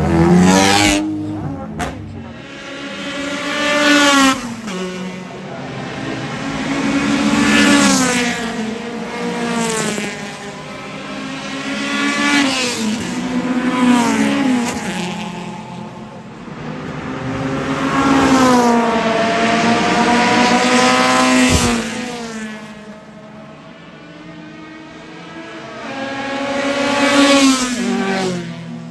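A string of 90s Honda Civic race cars with high-revving four-cylinder DOHC VTEC engines passing one after another at racing speed. The engine notes climb high and drop back with each gear change, and the level swells and fades about seven times as the cars go by.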